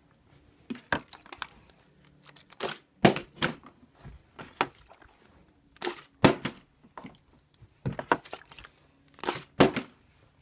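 Plastic water bottle with some water in it being flipped over and over, about six tries. Each landing is a quick clatter of a few knocks and plastic crinkles as the bottle hits, bounces and topples.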